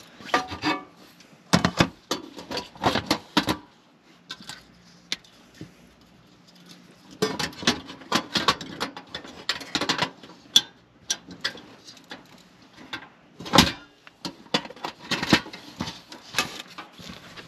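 Handling noise as a portable butane camp stove, its gas canister and a frying pan are set up: irregular clunks, clicks and rustles in clusters with quieter gaps, and one louder knock late on.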